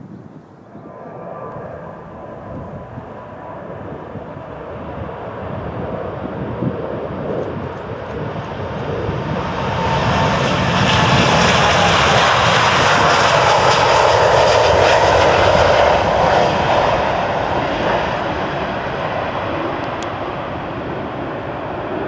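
Boeing 787-9 jet airliner taking off, its twin engines at take-off thrust. The noise builds steadily as it approaches, is loudest about halfway through with a falling whine, then eases off as it moves away.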